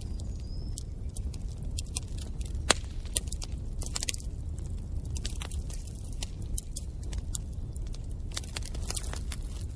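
Wood fire burning in a fireplace: a steady low rumble of the flames with irregular crackles and pops, one pop louder than the rest a little under three seconds in.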